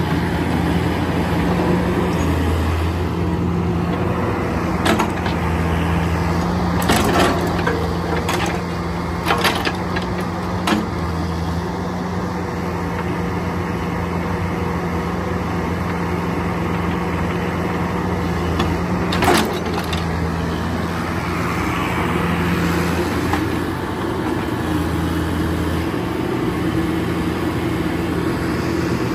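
Bobcat 331 mini excavator's diesel engine running steadily, with several sharp metallic clanks in the first half and one more about two-thirds of the way through.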